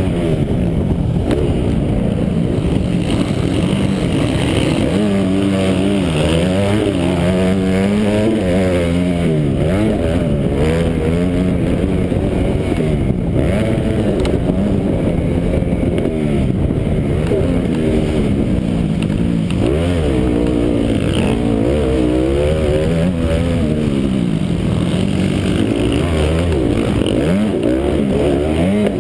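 Motocross bike engine at race pace, revving hard and dropping off over and over as the rider works the throttle and gears, its pitch climbing and falling every second or two.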